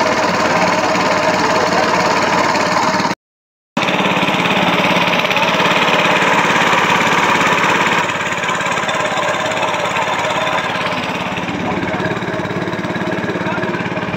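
A small engine running steadily at a constant speed. It cuts out to silence for about half a second near three seconds in, then runs on slightly quieter from about eight seconds in.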